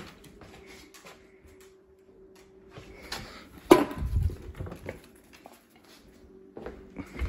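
Steel dog bowl of dry kibble being handled and set down on a tile floor: scattered light knocks, and one sharp clank about halfway through.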